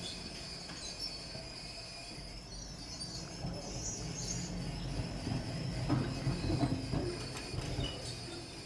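Green 1936 Liverpool double-deck electric tram rolling slowly over street track, its wheels and running gear rumbling under a steady high-pitched whine. A few knocks from the wheels come near the middle, loudest about six seconds in.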